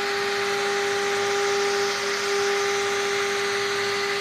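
CNC engraving machine spindle running at high speed, its engraving bit cutting letters into a wood board: a steady high whine over an even hiss that holds constant throughout.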